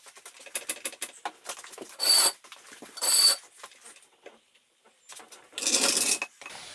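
Hydraulic floor jack lowering a car and being pulled out from under it: a string of light clicks and rattles, two short loud bursts of noise about a second apart, and a longer, louder one near the end.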